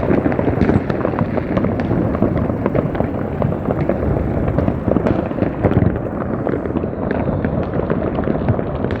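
Fireworks and firecrackers going off continuously all around at midnight on New Year's, a dense unbroken crackle of many overlapping pops and bangs.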